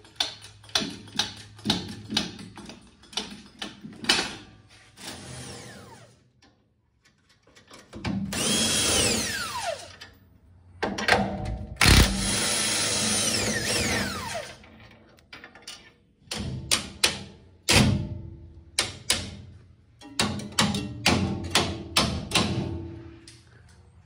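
Cordless impact wrench run in two bursts on the leaf-spring U-bolt nuts, each falling in pitch as it winds down, with a sharp knock between them. Before and after the bursts, a run of quick metallic clicks and knocks.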